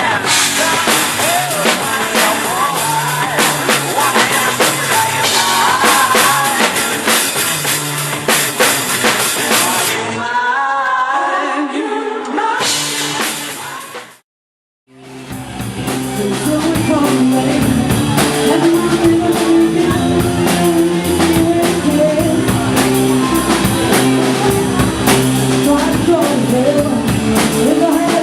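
Recorded pop-rock music with a drum kit and singing. About ten seconds in it thins to a sparser passage with singing, cuts out briefly about halfway through, and a different song with a strong bass line starts.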